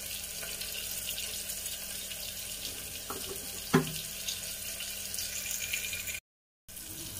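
Onion, tomato and spice masala sizzling steadily in oil in an aluminium pressure cooker on a gas stove, with a single knock about four seconds in. The sound cuts out for a moment near the end.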